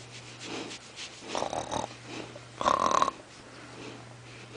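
Dogo Argentino making short, breathy noises, with two louder bursts about a second and a half and two and a half seconds in; the second carries a brief whine.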